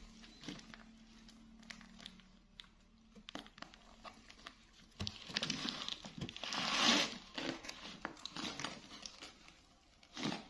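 A clear plastic bag of jelly cups crinkling as small hands grip and pull at its opening, trying to get it open. It is faint and scattered at first, then louder from about halfway through, loudest around two-thirds of the way in.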